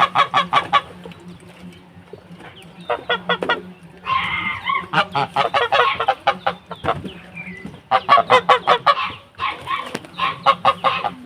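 Domestic fowl calling in several bursts of rapid, repeated honking cackles.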